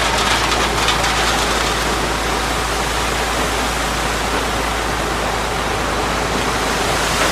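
Steady rushing noise of wind buffeting the microphone, with a constant low rumble, and surf on a beach behind it.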